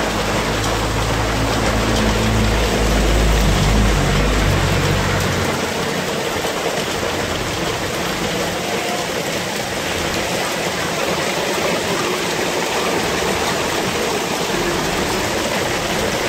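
Hail and rain pelting a wet street, a dense steady patter and hiss. A vehicle engine rumbles low underneath for about the first five seconds, then fades out.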